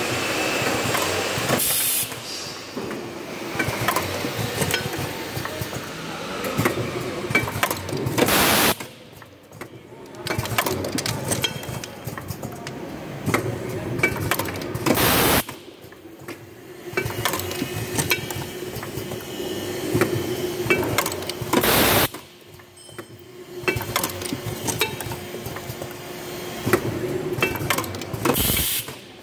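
Pneumatic poultry-nipple assembly machine with a rotary index table, running through its cycle with continuous clicking and clattering of parts and cylinders. A loud burst of air hiss comes about every six and a half seconds.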